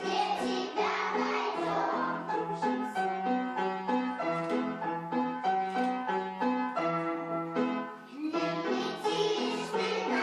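A children's song playing, with a bouncing bass line and a clear melody; voices sing along at the start and again near the end.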